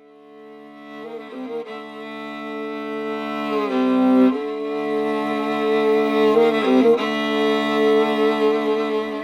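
Music of slow, held bowed-string notes that fade in from silence and grow louder, shifting pitch a few times, then stop abruptly at the end.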